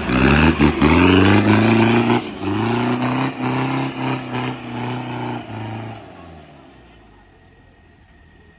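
Off-road 4x4 truck's engine revved hard in repeated surges, rising and falling, as the truck struggles through a deep mud pit, pouring black exhaust smoke. The revving dies away after about six seconds.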